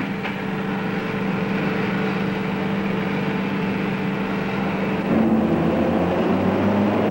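Steady machinery hum over a rushing noise; about five seconds in its pitch shifts and it gets a little louder.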